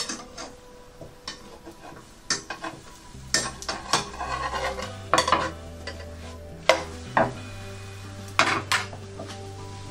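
Metal spatula scraping and tapping against a nonstick frying pan as a crepe is loosened and turned over, with the batter sizzling in the hot pan. Sharp clicks come at irregular moments, with a longer stretch of scraping about three to five seconds in.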